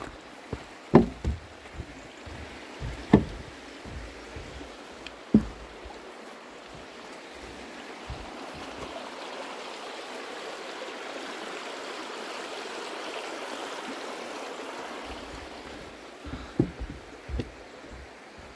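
Heavy footsteps knocking on the planks of a wooden footbridge, three loud steps in the first six seconds, over the steady rush of a shallow rocky stream. The stream grows louder in the middle, then fades as a few more footsteps sound on a dirt path near the end.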